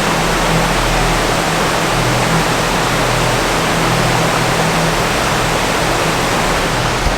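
Waterfall rushing: a steady, even wash of falling water, with a faint low hum underneath.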